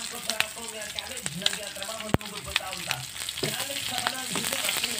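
Pork cubes, garlic and red onion sizzling in hot oil in a frying pan, with a steady crackle of small pops and a wooden spoon stirring. One sharp, louder click about two seconds in.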